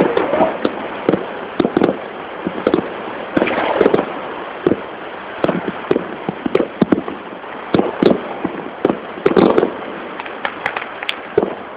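Many fireworks and firecrackers going off at once: a dense, irregular stream of bangs and pops, several clustered in quick runs, with aerial shells bursting overhead.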